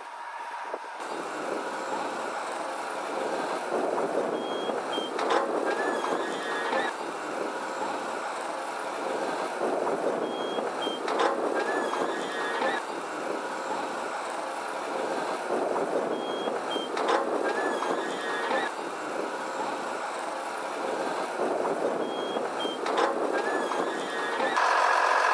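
Tipper truck reversing slowly, its engine running steadily under a reversing signal whose short pattern of tones repeats about every six seconds.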